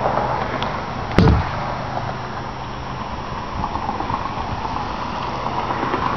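A fiberglass boat hatch lid shuts with a single sharp thump about a second in, over steady wind noise on the microphone.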